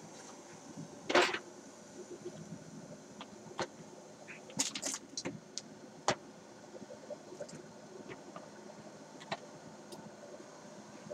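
Kitchen handling noises around a saucepan on an electric stove burner: a knock about a second in, a cluster of crisp crinkling clicks near the middle, and a few light ticks.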